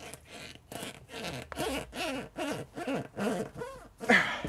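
A bladed screwdriver being worked through a motorcycle tyre's rubber and carcass cords, squeaking and rasping in short repeated strokes about three times a second. The loudest stroke comes near the end, as the blade is about to break through.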